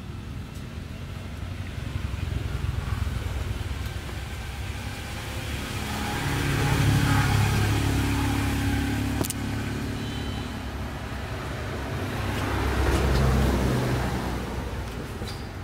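Passing motor-vehicle traffic: a low engine hum and road rumble that swells and fades, loudest about halfway through and again near the end.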